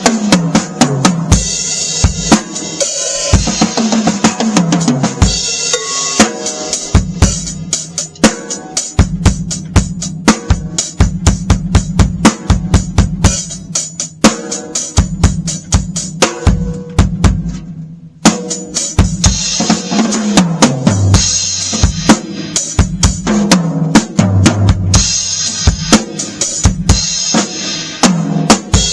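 Full drum kit played as a groove with snare backbeat, bass drum and cymbals; the snare is a Beatello Ace of Spades 14x8 basswood snare drum. Several fills run down the toms, and the playing breaks off for a moment a little past the middle.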